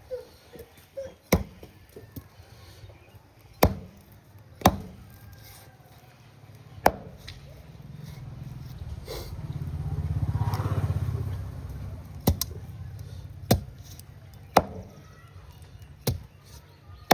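Chopping with a heavy blade, single sharp strikes at irregular gaps of a second or two. A low rumble swells and fades in the middle.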